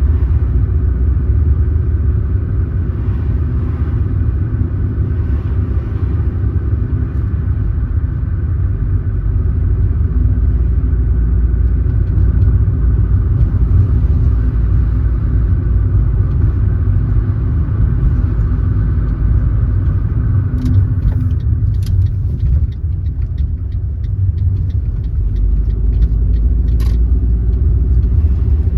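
Car driving along, with a steady low rumble of engine and tyre road noise. A few light clicks come near the end.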